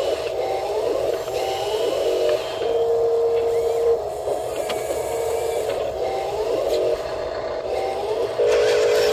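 Electric motors and gearboxes of a radio-controlled model excavator whirring in short spurts as its boom and arm move. Each spurt rises in pitch as it starts, with steadier held whines between, and it stops and starts over and over.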